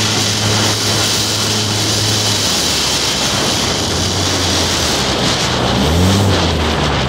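Polaris RZR 800 side-by-side's twin-cylinder engine running under throttle, with a steady hiss of wind and tyres on dirt. About two and a half seconds in the engine note drops, and near the end the revs rise and fall a couple of times.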